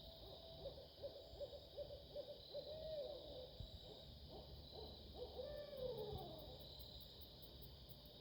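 Barred owl calling: a quick run of evenly spaced hoots, then longer hoots that slide down in pitch.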